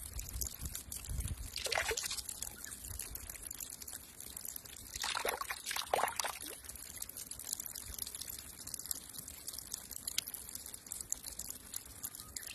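Water pouring steadily from the open end of a pipe and splashing onto rock, with louder splashes about two seconds in and again around five to six seconds in as a young monkey's hand breaks the stream.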